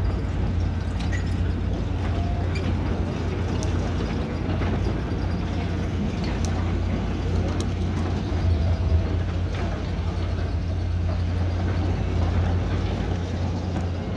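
Diesel engines of heavy earthmoving machinery, including a tracked excavator, running steadily with a low, even hum.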